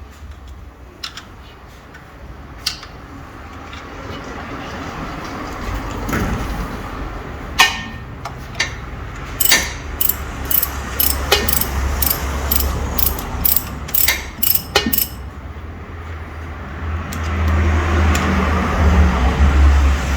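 Ratchet wrench clicking in repeated strokes, about two a second for several seconds, as it works loose a very tight fastener. A low hum builds up underneath toward the end.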